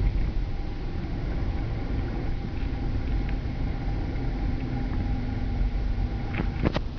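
Cabin noise of a 2007 Cadillac Escalade cruising at about 40–45 mph: a steady low rumble of road and engine noise, with no squeaks or rattles. A few sharp clicks come near the end.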